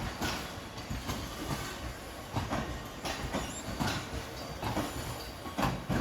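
Loaded IOA ballast wagons rolling past on the rails, their wheels clacking again and again over the track joints.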